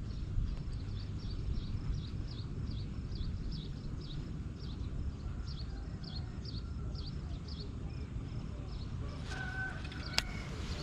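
A high, short chirp repeated about two or three times a second, each note falling slightly, over a steady low rumble. Near the end come a sharp click and a few brief higher tones.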